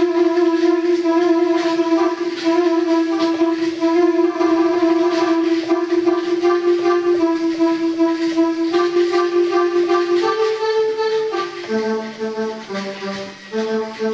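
Casio SA-77 electronic keyboard playing a slow melody through its built-in speaker, its sound working again after a no-sound repair. A single note is held for about eight seconds, then shorter notes change in quick succession from about ten seconds in.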